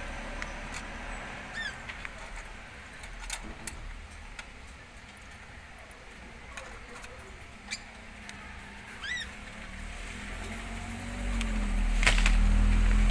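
Indian ringneck parakeets nibbling chili on a wire cage floor: scattered small clicks and taps, with two short chirps, one about a second and a half in and one about nine seconds in. A low rumble swells over the last two seconds and is the loudest sound.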